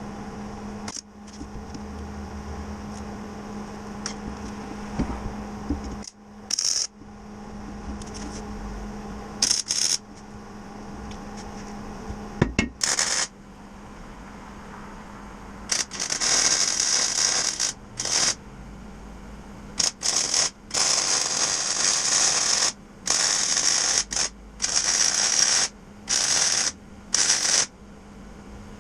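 Metal tool work: a few clinks and knocks over a steady hum, then from about halfway a run of short, repeated bursts of a ratchet wrench working.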